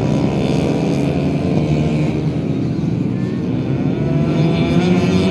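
Motors running continuously, several pitches gliding up and down as they rev.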